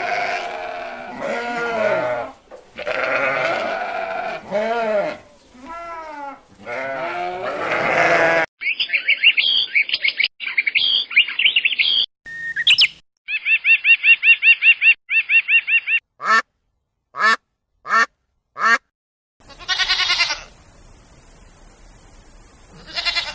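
Sheep and lambs bleating over and over for the first eight seconds or so. Then a flock of birds calls in fast, high, chattering runs, followed by a string of short, separate high calls. Near the end, goats bleat twice.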